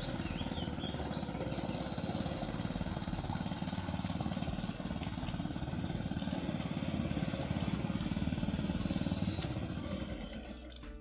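A small engine running steadily, easing off a little near the end.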